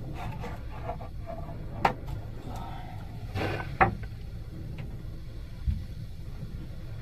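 Muffled rush of sea water and waves heard right at the surface, a steady low rumble, with a short hissing splash and three sharp knocks against the camera's cover.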